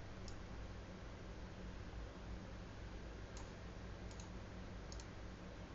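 Computer mouse clicking a few times, a single click then close pairs like double-clicks, over a faint steady low hum.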